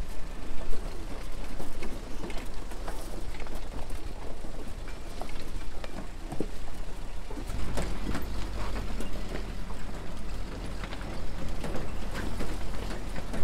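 A vehicle running over rough ground: a steady low rumble under many irregular rattles and knocks. The rumble gets heavier about seven and a half seconds in.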